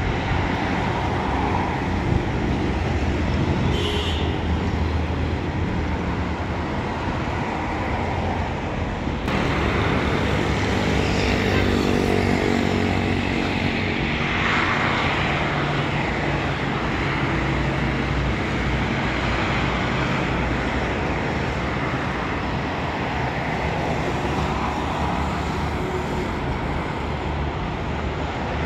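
Steady road-traffic noise: a continuous rush and low vehicle hum, swelling briefly about halfway through.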